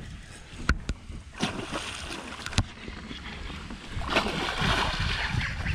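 Water splashing as a large hooked fish thrashes at the surface beside the boat while being landed, heaviest about four seconds in, with a couple of sharp knocks earlier.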